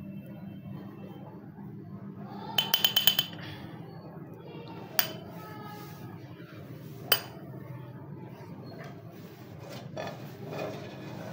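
Steel frying pan clinking against the metal stand of a gas burner: a quick rattle of about six ringing clinks some two and a half seconds in, then single clinks at about five and seven seconds, over a steady low hum.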